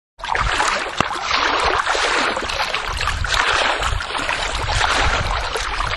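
Water in a swimming pool sloshing and splashing as a person wades through it on foot, in uneven surges with each step.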